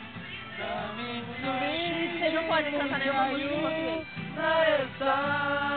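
Casual group singing by men's voices to an acoustic guitar, the melody gliding and wavering, with brief breaks about four and five seconds in.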